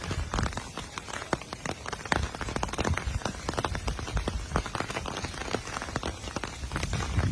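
Rain or dripping water pattering in many irregular sharp ticks, over a low rumble.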